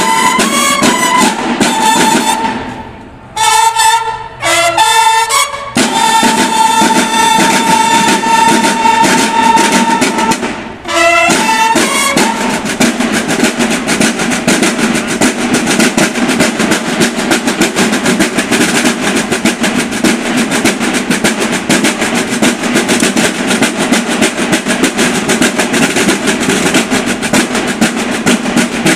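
Banda de guerra (Mexican drum and bugle corps) playing: for the first twelve seconds or so the bugles sound phrases with short breaks, including one long held note. Then the snare drums take over with fast, continuous drumming and rolls.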